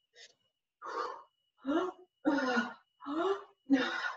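A woman breathing hard through a cardio exercise: about five short voiced exhales in a steady rhythm, roughly one every 0.7 seconds.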